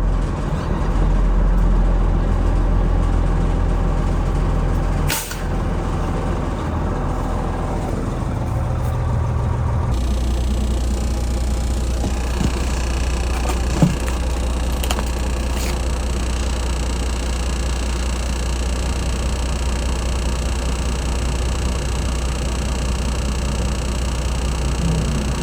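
Cab-over truck engine running steadily with a deep rumble, with a brief sharp noise about five seconds in and a short click near fourteen seconds; the sound shifts in character about ten seconds in.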